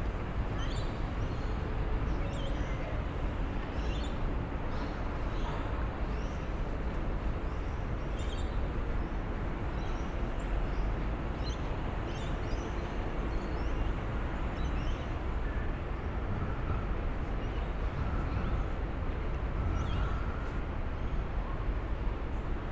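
Steady city traffic noise, with small birds chirping in short calls again and again over it.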